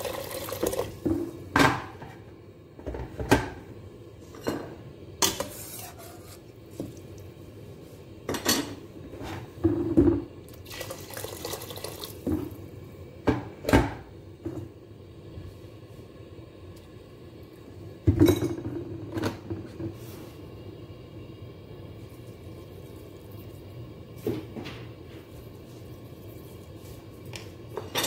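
Tap water running into a stainless steel pot of rice, stopping about half a second in, then irregular clanks and knocks of the steel pot with water sloshing as the rice is rinsed.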